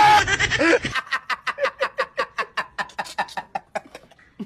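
A person laughing in a fast run of short bursts that fades away over about three seconds, after loud screaming and noise break off about a second in.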